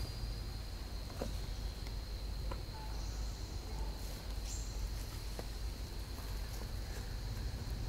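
Steady high-pitched insect hum holding one pitch, over a constant low rumble, with a few faint scattered clicks.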